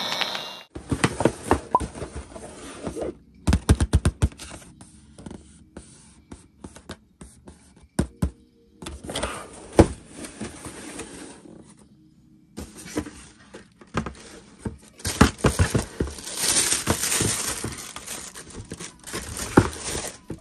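Hands handling a cardboard shoebox: clusters of taps and knocks with scraping of fingers on the cardboard, then a longer stretch of rustling as the tissue paper inside is pulled back from the sneakers.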